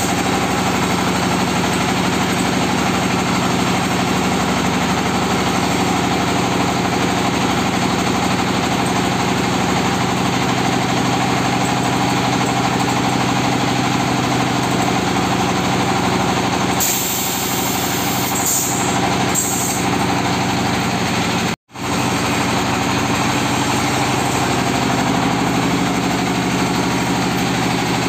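Automatic clay-brick press machine running steadily with a loud, even mechanical drone, with a few short hisses in the second half and a momentary cut to silence about two-thirds of the way through.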